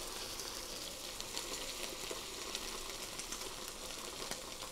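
Sous-vide-cooked ribeye steak, coated in mayonnaise, searing in very hot avocado oil in a frying pan: a steady sizzle with many small crackles.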